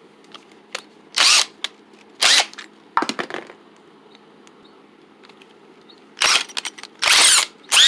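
A series of short rasping scrapes, about six, each under half a second, with pauses between them, from tools and wood being handled.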